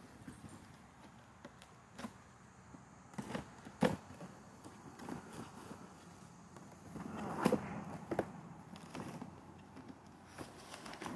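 Cardboard shipping box being opened and handled: flaps folding and scraping, with scattered knocks and a louder stretch of rustling about two-thirds of the way through.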